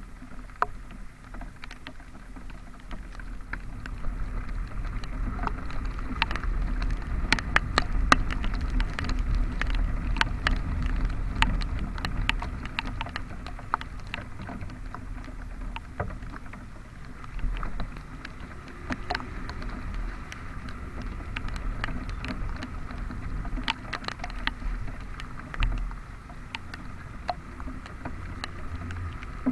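Riding noise of a Honda Vario scooter in the rain, muffled by a waterproof camera case: a steady low rumble of engine, wind and road, with raindrops ticking sharply and irregularly against the case, busiest in the middle.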